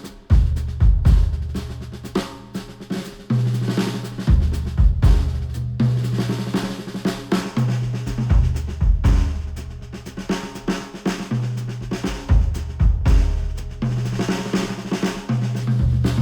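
Instrumental music with a drum kit (snare, kick, hi-hat) over a bass line of held notes that step in pitch, played through headphones and picked up by microphones at the ear cup.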